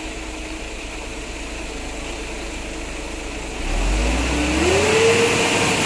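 Concrete mixer truck's diesel engine running steadily, then revving up about three and a half seconds in, its pitch climbing and then holding higher, as the drum discharges concrete down the chute.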